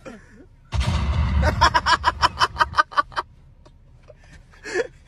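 A burst of rapid gunfire-like bangs, about seven a second, over a deep rumble. It starts suddenly about three quarters of a second in and stops after about two and a half seconds, when the rounds run out.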